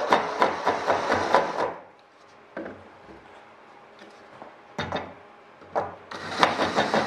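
Cordless drill with a step drill bit cutting into an aluminium rib, a rough grinding for about a second and a half as the hole is worked out to the rib's edge. Then a pause with a few light clicks, and the bit cuts again near the end.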